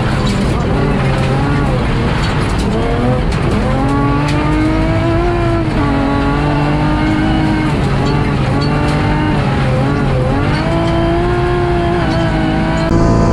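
BMW M3 rally car's engine driven hard, the revs rising and falling several times through gear changes and lifts.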